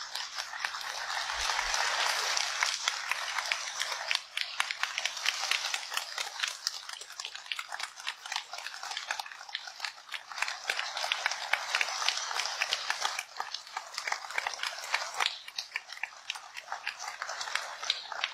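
Audience applauding: many hands clapping together, swelling and easing off in waves.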